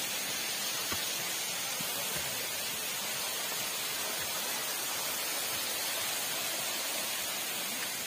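Steady rush of a forest waterfall, water cascading over rocks as an even hiss.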